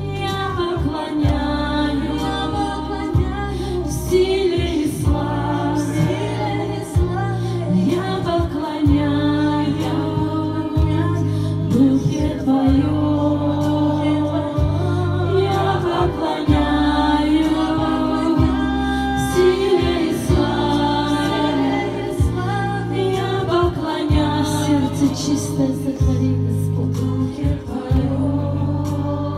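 Female vocalists singing a Russian-language worship song together, amplified through microphones, over sustained low instrumental chords that change every second or two.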